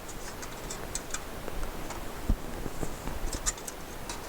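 Small plastic connectors being pulled off a floppy drive's circuit board: scattered light clicks and ticks, with one low thump a little past halfway.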